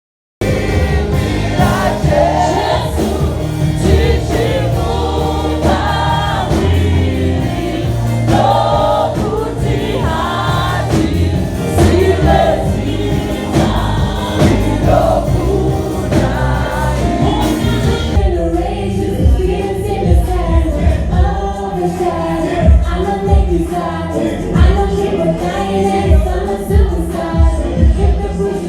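Gospel music with a choir singing over full backing, starting abruptly. About two-thirds of the way through, the sound turns duller and a stronger low beat comes through.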